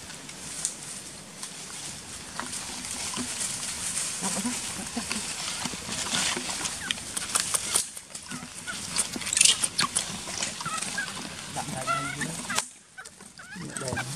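Monkeys calling with short grunts, then high squeaky squeals about three-quarters of the way through, over crackling and rustling of dry leaf litter.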